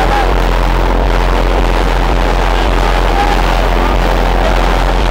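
Loud, steady engine noise from running vehicles, holding an even level throughout, with faint voices underneath.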